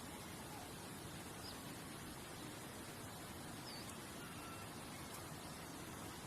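Outdoor nature ambience: a soft, steady hiss with a few faint, short bird chirps.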